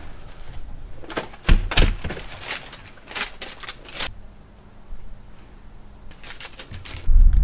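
A front door being opened and shut: clicks of the handle and latch with two low thuds about a second and a half in, then a few lighter clicks. Near the end a loud low rumble of wind on the microphone starts suddenly.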